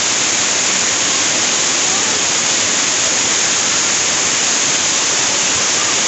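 Steady rushing of water pouring from a large outlet pipe and cascading down a concrete weir.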